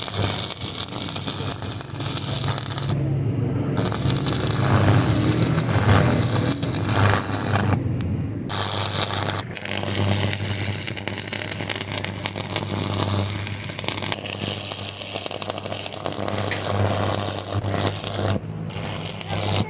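Metalworking noise: a steady low machine hum under a continuous scraping, crackling hiss that breaks off briefly three times.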